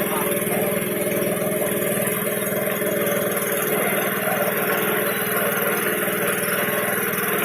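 A small engine running steadily at an even speed, with no revving or change in pitch.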